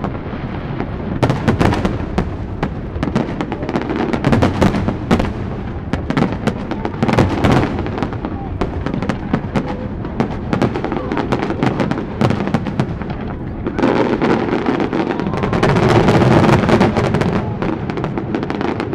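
Aerial firework shells bursting in a dense barrage: many sharp bangs in quick succession, mixed with crackling, thickest and loudest about three-quarters of the way through.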